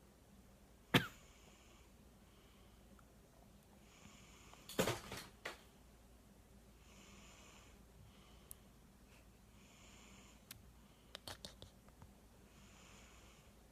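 A sleeping man snoring softly, with a hissy breath about every three seconds. A sharp knock about a second in is the loudest sound, and there are a few more knocks and clicks around five seconds and again near the end.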